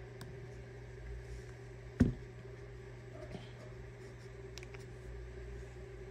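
A smartphone being handled and set down: one sharp knock about two seconds in and a few faint taps, over a steady low hum.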